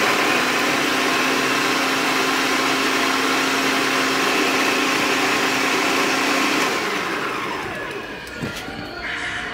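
Countertop blender motor running at high speed, grinding quick oats into flour. About seven seconds in it is switched off and winds down, its pitch falling.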